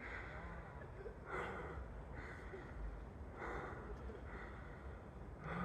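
A person breathing audibly close to the microphone, a breath every second or so, over a steady low rumble.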